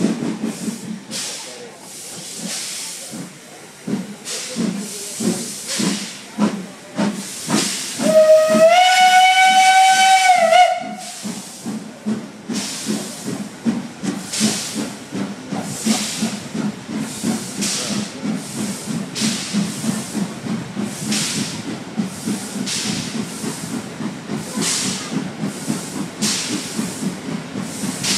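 Steam locomotive pulling away: uneven exhaust chuffs, then a quick run of fast beats as the driving wheels slip. About eight seconds in, a steam whistle sounds for about two and a half seconds, rising slightly and dropping as it cuts off. Steady chuffing follows as the train gathers speed, heard from an open carriage window.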